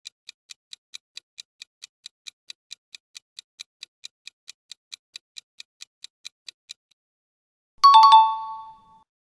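Countdown-timer sound effect: a clock-like ticking, about four and a half ticks a second, that stops after about seven seconds. About a second later a bright chime rings and fades, marking the answer reveal.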